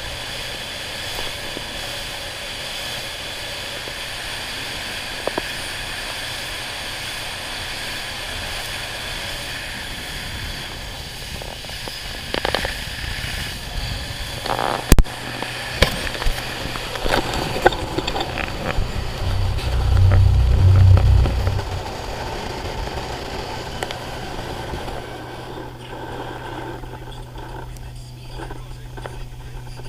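Stingray 180 RX speedboat running at speed: a steady engine drone under a rush of wind and water. Scattered sharp knocks and crackles come about twelve to eighteen seconds in, and a loud low rumble follows around twenty seconds in.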